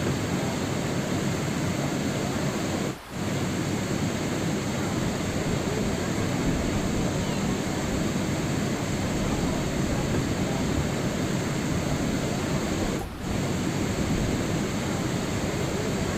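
Steady rain noise, an even hiss and patter with no distinct drops or tones, briefly dropping out twice, about ten seconds apart.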